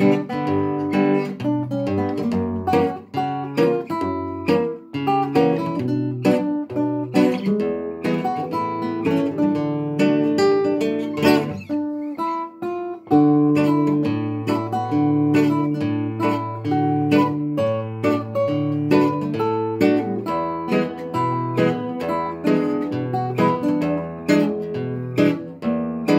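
Two nylon-string classical guitars playing a duet, fingerpicked notes with a melody over a moving bass line.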